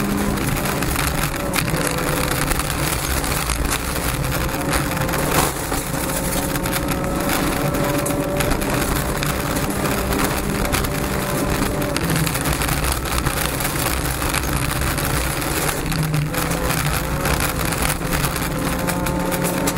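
Honda Civic rally car's engine at full throttle, heard from inside the cabin: the revs climb, drop sharply about twelve seconds in and climb again. Gravel clatters constantly against the underbody, with a sharp knock about five seconds in.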